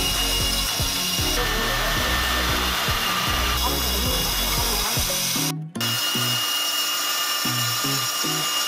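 Band saw running and cutting through wooden boards: a steady machine whine with the hiss of the blade in the wood, over background music. The sound breaks off briefly a little after five seconds in.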